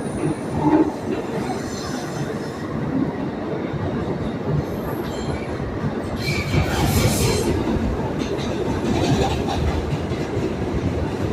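Rapid-transit train running on its rails, a steady rumble and rattle of wheels on track, with a brief high wheel squeal about six seconds in.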